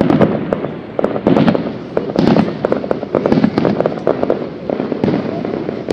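Fireworks display: a dense run of bangs and crackling, with heavier bursts roughly once a second.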